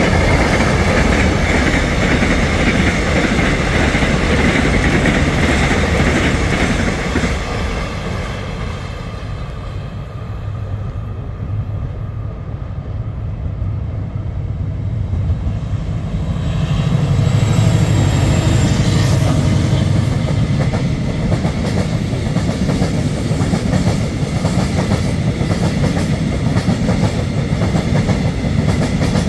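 Two diesel-hauled freight trains passing on adjacent tracks. A KORAIL 7400-series diesel-electric locomotive and its train run by loudly at first, and after a quieter spell a 7600-series diesel-electric locomotive comes up with a deep engine hum. Its cement tank wagons then rumble and clack steadily over the rail joints.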